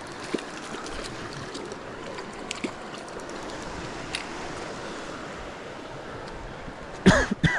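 Steady rush of a mountain creek flowing over rocks, with a few small clicks scattered through it. Near the end, a short loud exclamation with falling pitch.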